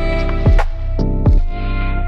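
Background music with a steady beat: held synth chords over a regular kick drum.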